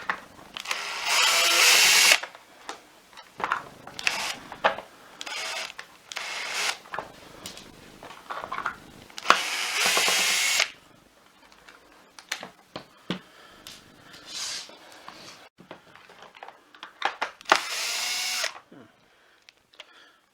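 Cordless electric screwdriver run in short bursts, backing screws out of a vacuum power nozzle's plastic top cover, with clicks of screws and plastic being handled between bursts.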